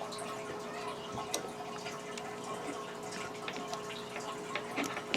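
Light plastic clicks and taps of Lego pieces being handled and pressed together, scattered irregularly over a steady low hum.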